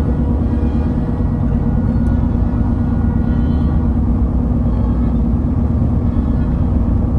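Steady low rumble of a car driving, road and tyre noise heard from inside the cabin.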